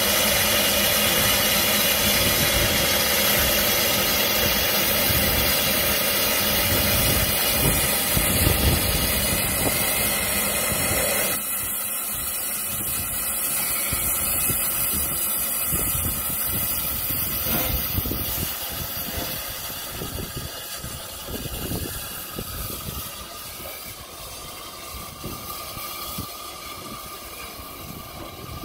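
Steam locomotive letting off steam in a loud, steady hiss that cuts off suddenly about eleven seconds in, leaving a quieter hiss and running noise that fades as the engine moves away.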